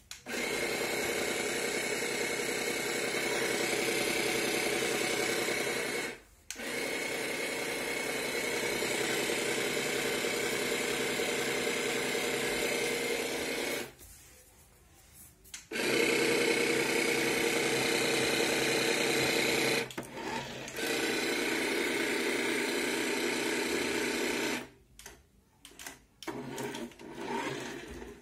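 Small electric water pump of a toy RC fire truck whirring in four long runs of about four to eight seconds each, switching off briefly between them, as it sprays water. A few faint knocks follow near the end.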